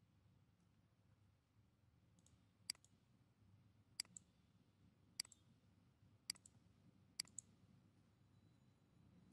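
Faint computer mouse clicks: about five, most of them quick double clicks, starting a couple of seconds in and spaced roughly a second apart.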